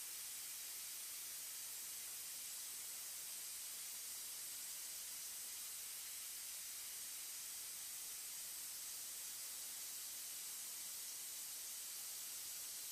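Steady high hiss of a Kinetic Metallization cold-spray gun's gas jet blasting titanium powder onto a metal plate.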